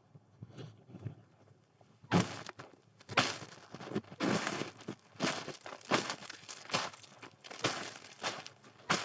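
Footsteps crunching through snow, starting about two seconds in and going on at a walking pace, a crunchy step roughly every half second.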